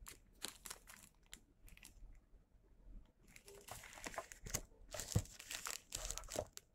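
Faint crinkling of a thin clear plastic bag being handled, in scattered short crackles that grow busier in the second half.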